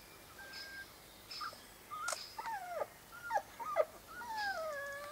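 Small dog whimpering: a run of short, high, falling whines, then one longer whine that dips and rises again near the end. The owners take it for the dog being frightened.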